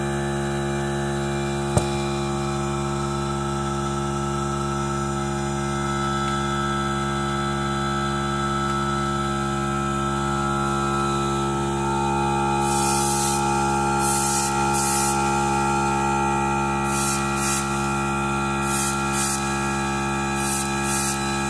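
Airbrush compressor running with a steady hum throughout. From a little past halfway, the airbrush gives about nine short spritzes of spray hiss, the first the longest, with a single sharp click about two seconds in.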